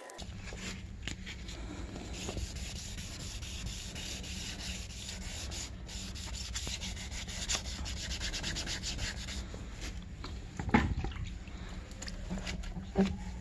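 Hand wet-sanding of sprayed clear coat on a car's painted bumper with fine 2000-grit paper on a sanding block: rapid back-and-forth rubbing strokes, with two knocks near the end. This is the matting-down of the touched-up lacquer before polishing.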